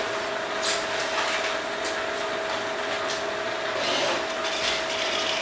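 Steady hum of surgical equipment, two steady tones under an even hiss, with a few short hissing surges.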